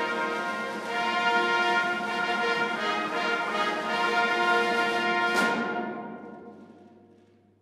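Orchestral music with brass, playing held chords; a crash about five and a half seconds in closes it, and the sound dies away over the last two seconds.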